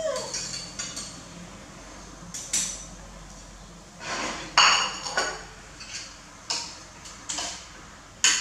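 Metal spoon clinking and scraping against ceramic plates and a bowl in a scatter of short separate clinks, with a plate set down on the floor about four seconds in, the loudest moment.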